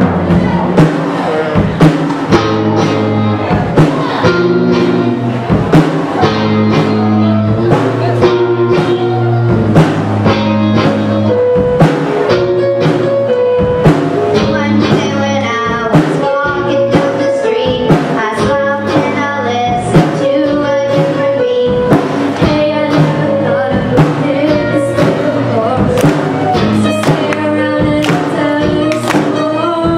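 Young girls' rock band playing a song live, with a drum kit keeping a steady beat under keyboard, and girls singing the lead vocal into microphones.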